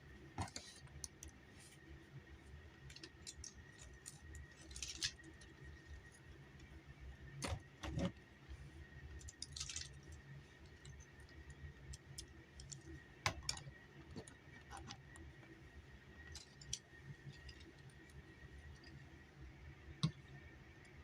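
Plastic Transformers action figures being handled and set down on a surface: scattered light plastic clicks and knocks, about a dozen, over a faint steady hum.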